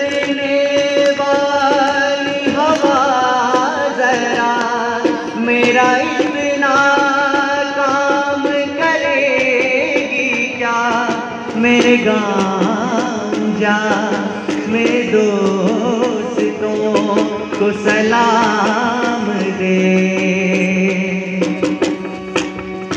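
A young man singing into a microphone, amplified through a PA loudspeaker, with vibrato on long held notes, over instrumental accompaniment.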